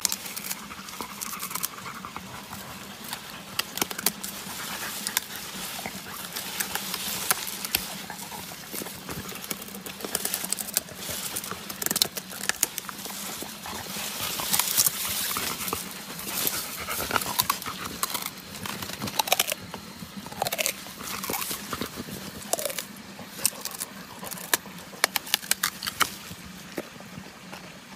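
A dog biting and gnawing on sugarcane stalks: irregular crunching and cracking of the cane, with rustling of dry leaves.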